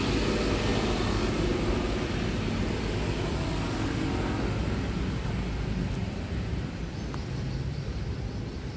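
Steady low outdoor rumble with no distinct events, easing slightly in the second half.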